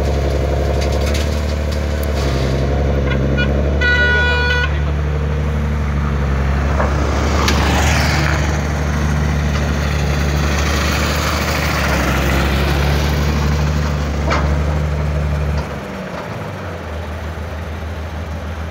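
Heavy diesel engine of a Caterpillar crawler excavator running steadily under load as it works. A vehicle horn toots once briefly about four seconds in, and the engine note drops and quietens near the end.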